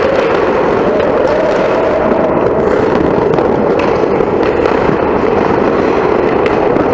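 Ice hockey rink sound picked up by a camera behind the goal: a loud, steady, crackling rush of noise, with a few sharp clicks from sticks, skates or the puck on the ice.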